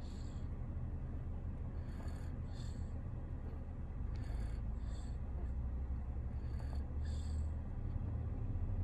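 Steady low rumble of a car cabin, with a sleeping toddler's soft breathing heard as faint paired breaths about every two seconds.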